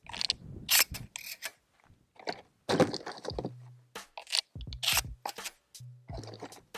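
Maverick 88 12-gauge pump-action shotgun being handled: an irregular run of sharp metallic clicks and scrapes, loudest about a second in and again near three seconds in.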